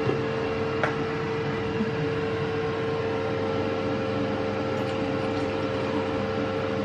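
Air fryer running with a steady, even hum. Two small clicks come in the first second as the stopper is worked off a bottle of sparkling wine.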